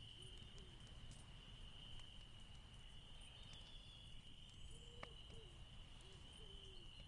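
Near silence: faint room tone with a thin, steady high whine.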